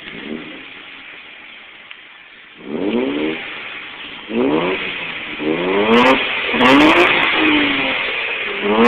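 Mazda 626 engine and exhaust idling, then revved in a quick series of throttle blips from about three seconds in, each a sharp rise and fall in pitch, about six in all.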